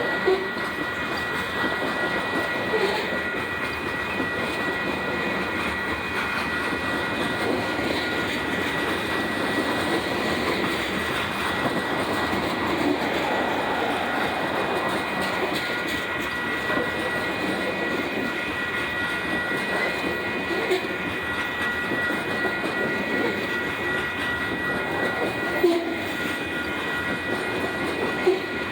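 Long, heavy freight train rolling past: a steady rush and rumble of freight cars, with a few sharp wheel clacks and a steady high-pitched tone running through it.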